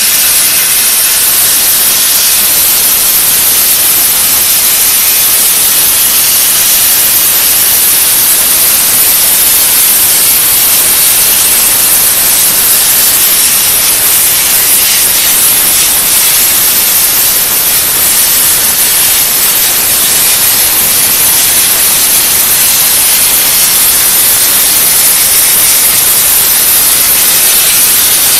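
CNC plasma torch cutting metal plate, driven by a 300 A plasma source: a loud, steady, high-pitched hiss from the cutting arc and gas jet.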